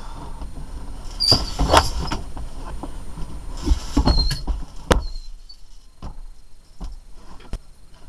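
Creaking, scraping and knocking from a Perkins M20 marine diesel engine being hoisted out in lifting straps. Two bursts of scraping with short high squeaks come about a second in and again about four seconds in, followed by a few separate knocks.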